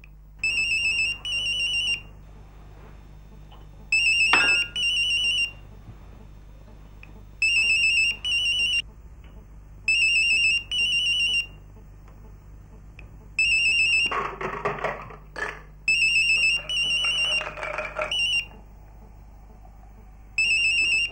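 Mobile phone ringing: a warbling electronic double ring, repeated seven times about every three seconds. Some louder shuffling noise comes between the rings around the middle, over a steady low hum.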